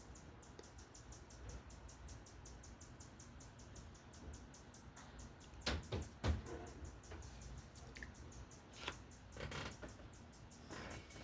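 A bird calling without a break: a fast, even run of short high chirps, about six a second, with only brief pauses. A few louder knocks sound over it around the middle of the stretch and again later.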